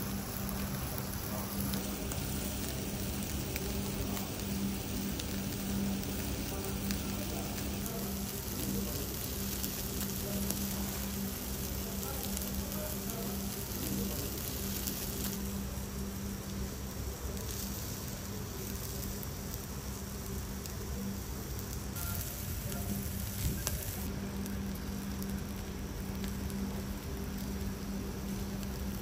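Beef and seafood sizzling over a tabletop charcoal grill: a steady hiss, with a low steady hum underneath that drops out now and then.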